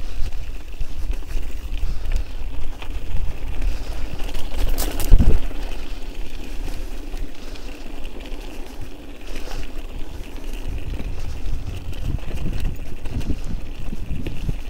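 Wind rumbling on the microphone of a moving bike, with the noise of the ride underneath and a sharp bump about five seconds in.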